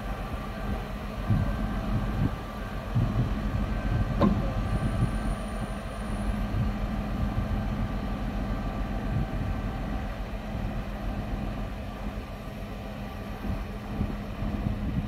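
Truck-mounted crane's diesel engine running steadily, driving the hydraulics as the boat is lowered, with one short sharp knock about four seconds in.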